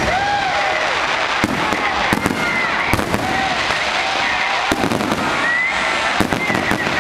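Fireworks display: a handful of sharp bangs from bursting shells, roughly one every second or two, over continuous crackling.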